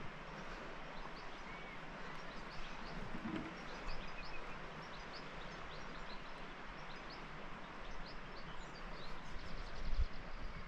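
Small birds chirping again and again in short, high, falling notes over a steady background hiss of open-air ambience. A brief low sound comes about three seconds in, and a louder low thump near the end.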